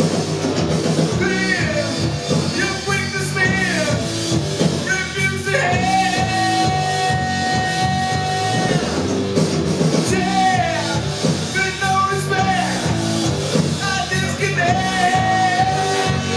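Live rock band playing: a male singer holds long notes that slide down at the end of each phrase, over electric guitar, electric bass and drums.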